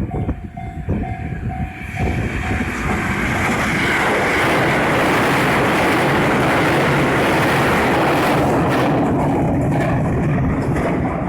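Level crossing warning bell ringing in rapid pulses, soon drowned out by a train passing over the crossing: a loud rush and rumble of wheels on rails that builds about two seconds in, stays loudest through the middle and eases near the end.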